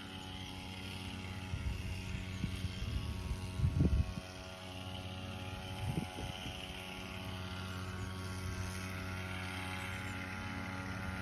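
Suzuki GrassTracker BigBoy's single-cylinder engine running at a steady pace while riding, with wind buffeting the microphone a couple of times.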